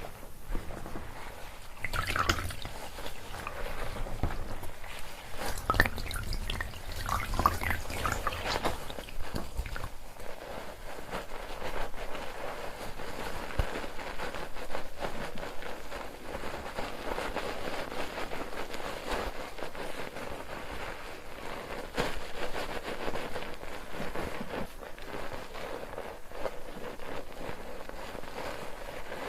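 Bar soap being worked into lather in a mesh foaming net with water: wet, squishy handling, heavier and bumpier in the first ten seconds or so, then settling into a steady, even squishing of foam.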